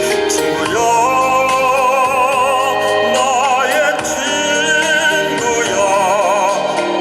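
A tenor singing a trot song over band accompaniment, holding long notes with wide vibrato.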